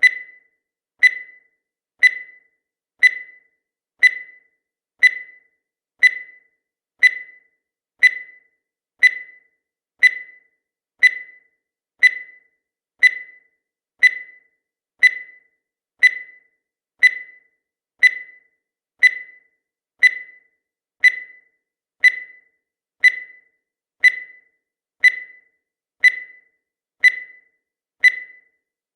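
Countdown timer sound effect: a short high beep once every second, each one sharp at the start and dying away quickly.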